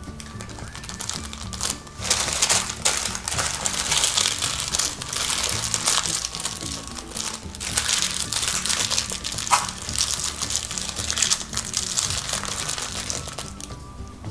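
Parchment (baking) paper crinkling as it is folded and creased around a sandwich, starting about two seconds in and dying down near the end, over soft background music.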